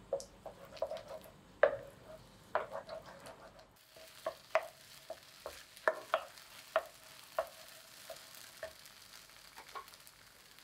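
Wooden spatula stirring and pressing churro dough in a pan on the stove, with repeated sharp taps and scrapes of the spatula against the pan. The dough goes from a wet batter to a stiff, crumbly mass as it cooks, and the taps come sharper and more spaced after about four seconds.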